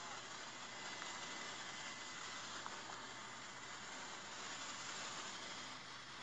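Steady cabin noise inside a small aircraft: an even hiss of engine and airflow, with no break or change.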